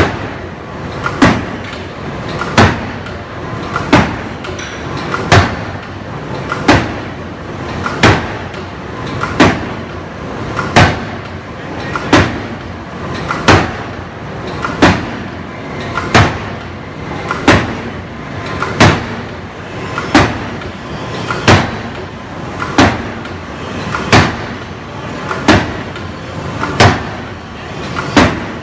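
Anyang hydraulic-and-gas open-die forging hammer pounding a red-hot workpiece in a steady rhythm, about one heavy blow every second and a third, with a swell of noise before each blow.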